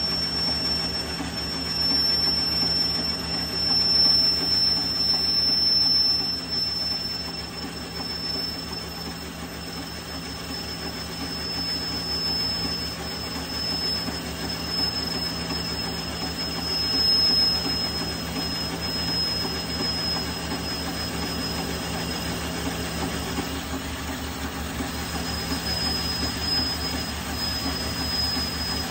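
Manual Logan metal lathe running, its chuck spinning while a cutting tool turns a brass tube, with a steady low motor and gear hum. A thin high-pitched whine holds over it and sinks slightly in pitch.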